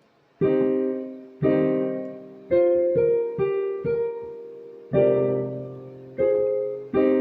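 Keyboard in an electric piano voice playing slow chords, about nine in all, each struck sharply and left to ring and fade before the next.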